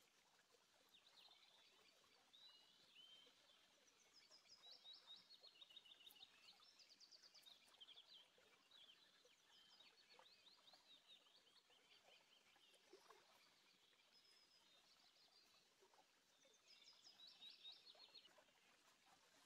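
Faint bird chirping: phrases of quick, high, repeated chirp notes, several times over.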